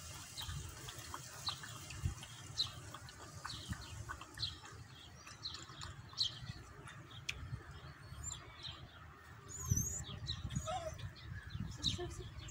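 Small birds chirping: short, high chirps repeating every half second to a second, with a curved whistled note about ten seconds in, over a low outdoor rumble.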